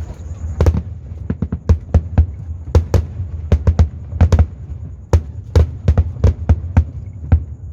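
Fireworks shells bursting in rapid, irregular succession, about twenty sharp booms over a low rolling rumble, as a display is test-fired.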